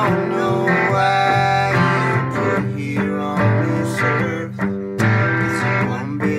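Breedlove acoustic guitar strumming chords with a Gibson electric guitar playing along, in an instrumental passage of a song without vocals.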